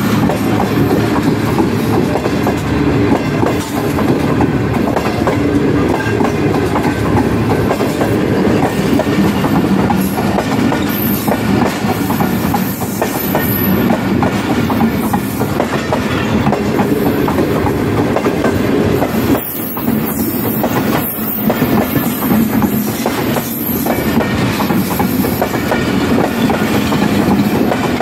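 Passenger coaches of a Pakistan Railways express train rolling past close by: a steady, loud rumble of steel wheels on the rails, with repeated clicks as the wheelsets cross rail joints.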